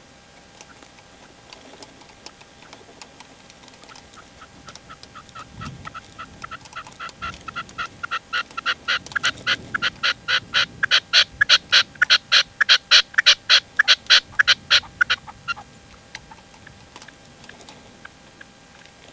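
Male red-legged partridge singing: a long, rhythmic run of short calls, about three a second, swelling from faint to loud over some ten seconds and then stopping suddenly. This is the decoy cock's song used to call wild partridges in.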